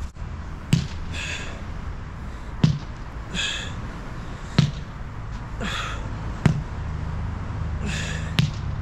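Repeated resistance-band triceps pulls on a rubber band looped over a metal bar: a sharp knock about every two seconds, each followed about a second later by a short hiss, over a steady low rumble.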